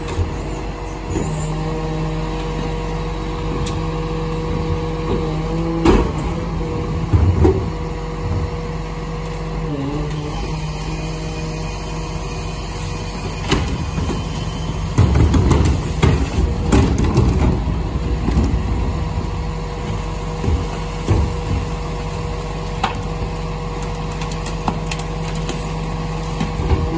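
Rear-loading garbage truck's diesel engine idling steadily while its bin lifter empties and lowers a large wheelie bin. Several bangs and rattles of the bin come over the engine, loudest about halfway through.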